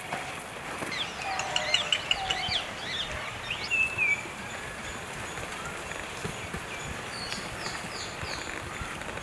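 Birds chirping over steady outdoor background noise: a burst of varied quick chirps and whistles in the first few seconds, then a short run of falling chirps near the end.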